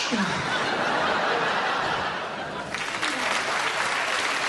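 Theatre audience laughing and applauding after a punchline; the clapping grows fuller about two and a half seconds in.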